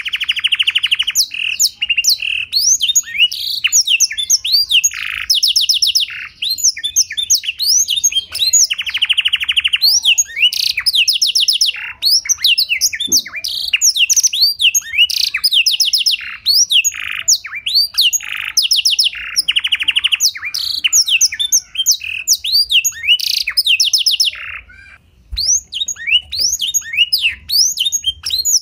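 Domestic canary singing a long, continuous song whose phrases are learned from the blackthroat. It moves between fast rattling trills and quick rising and falling whistles, with one short break near the end.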